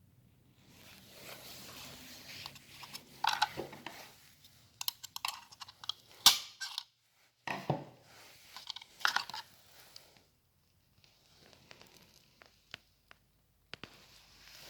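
Irregular handling noises from packaging material being moved and crinkled, with scattered sharp clicks and one loud knock about six seconds in.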